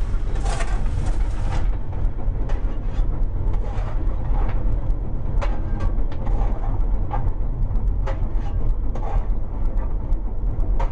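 Footplate sound of an LMS 'Jinty' 0-6-0 tank engine on the move: a steady low rumble, with scattered scrapes and clangs of the fireman's shovel as coal is fired into the firebox.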